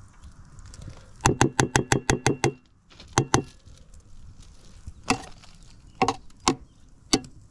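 A knife chopping on a cutting board: a quick run of about ten chops about a second in, then a pair of chops and a few single ones spaced apart.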